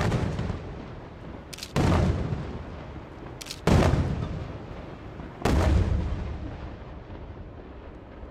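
Aerial firework shells bursting overhead: a bang at the start and three more about two seconds apart, each trailing off in a rolling echo.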